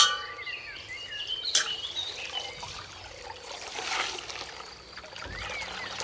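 Water trickling and pouring out of a popped toy packet of coloured water, with a sharp click about one and a half seconds in.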